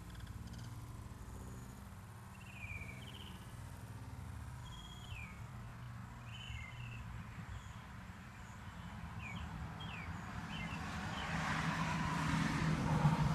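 Scattered short, falling bird chirps over a low steady hum; near the end a rushing noise swells and grows louder.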